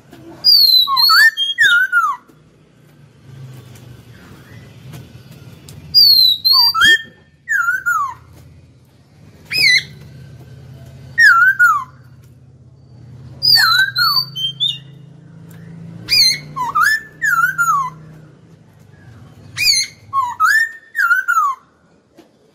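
Caged laughingthrush (khướu) singing loud whistled phrases of rising and falling notes in six bursts, each a second or two long, a few seconds apart.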